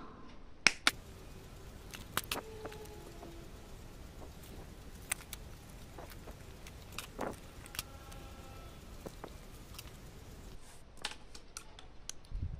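Scattered small clicks and metallic taps of wires and hand tools being handled as cables are fastened to a step-up converter module's output terminals, with a dull bump near the end.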